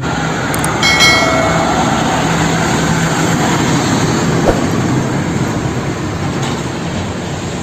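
A toy sand truck being run, making a steady, even rumble, with a few brief high tones about a second in.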